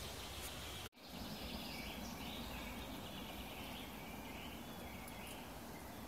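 Faint forest ambience: birds singing in the distance over a steady background hiss, broken by a sudden brief dropout about a second in.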